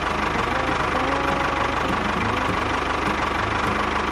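Tractor engine running steadily with a fast, even beat.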